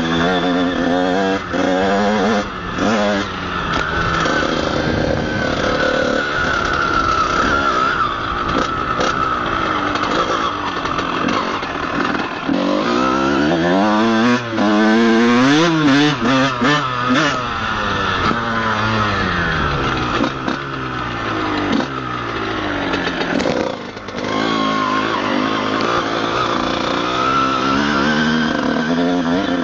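Honda CR125's two-stroke single-cylinder engine revving up and down as the motocross bike is ridden, heard from a helmet camera, with a quick run of rises and falls in pitch about halfway through. The bike is running on a burnt clutch.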